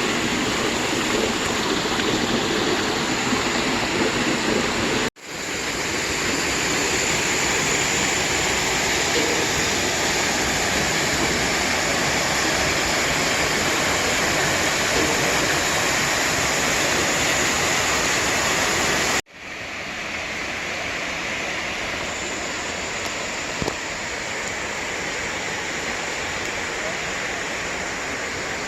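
Water of a mountain stream rushing steadily. The sound cuts out sharply for an instant twice, about five and nineteen seconds in, and is a little quieter after the second break.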